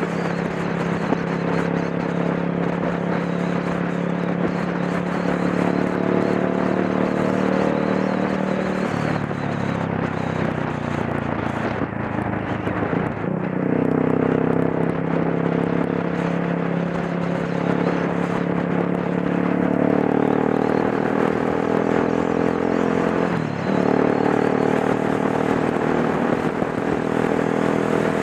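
Dual-sport motorcycle engine running under way on the road, mixed with steady wind rush over the helmet-mounted microphone. The engine note steps up and down in pitch a few times, with brief dips about 13 and 23 seconds in.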